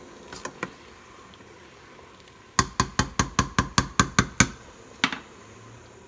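A wooden spoon rapped against the rim of a stainless-steel soup pot: a quick run of ten sharp knocks, about five a second, then one more knock half a second later. A few lighter clicks of the spoon on the pot come before them.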